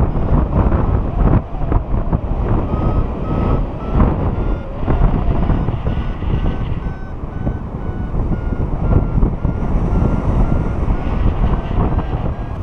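Wind rushing and buffeting over the microphone of a paraglider in flight, with a variometer sounding a steady string of short electronic beeps, the vario's signal that the glider is climbing.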